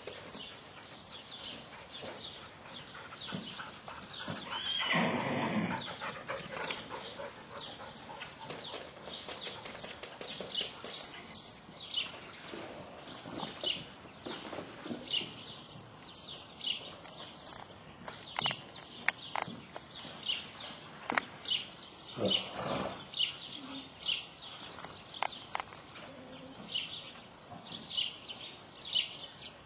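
A horse whinnies loudly once about five seconds in and again more briefly past the middle, over steady chirping of small birds.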